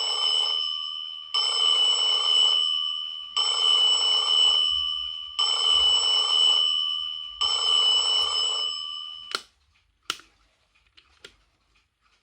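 SEIKO Jibanyan character alarm clock's bell alarm ringing in repeated bursts, each a little over a second long, about every two seconds. It cuts off with a click about nine and a half seconds in, followed by a few faint clicks.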